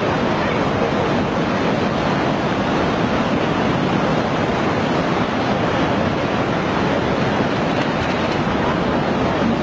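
Floodwater rushing and churning across the land: a loud, steady, dense rush with no let-up.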